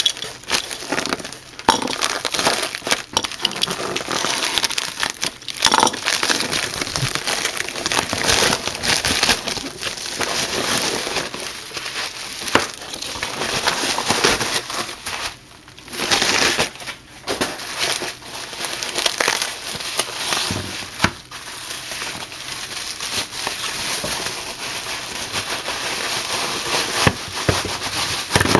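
Packing paper and wrapping crinkling and rustling almost without a break as a shipping box is cut into and unpacked by hand, with a couple of short pauses about halfway through.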